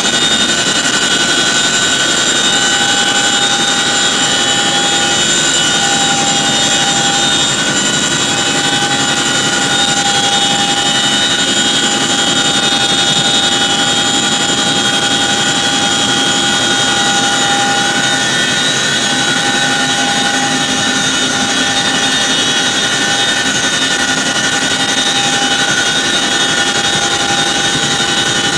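A steady machine drone with several high, unchanging whining tones over a constant rushing noise.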